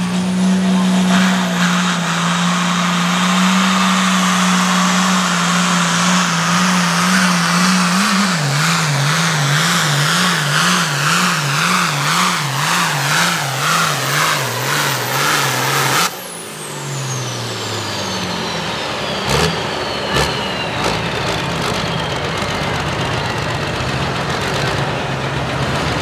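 Ford 8600 altered-farm pulling tractor's turbocharged diesel engine running at full power under the load of the sled. About eight seconds in, its note starts surging up and down, about one and a half times a second, as the tractor hops, unloading and hooking, which costs it speed and traction. About sixteen seconds in, the throttle is cut suddenly and the turbo winds down in a long falling whine while the engine drops to a lower, steady running note.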